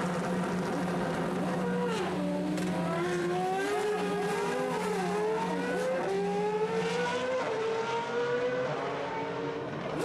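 World Series by Renault 3.5 single-seaters' Zytek V8 engines pulling away down the pit lane. Engine pitch dips, then climbs in repeated steps as they shift up through the gears, with more than one engine heard at once.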